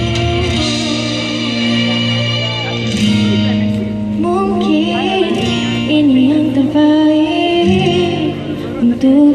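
Live music: a woman singing into a microphone over guitar accompaniment. Held chords carry the first few seconds, and a wavering sung melody comes in about four seconds in.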